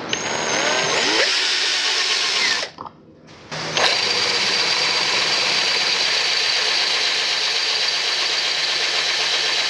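Power drill running, stopping for about a second near the three-second mark, then running again steadily with a high whine.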